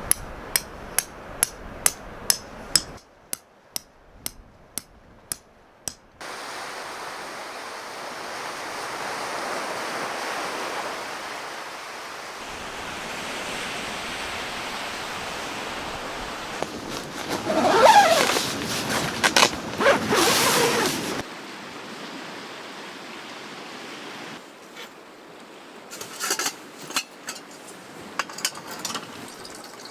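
Steady wash of surf on a beach. About a dozen sharp, evenly spaced clicks over the first six seconds, and a loud wavering pitched sound lasting a few seconds after the midpoint, with a few more clicks near the end.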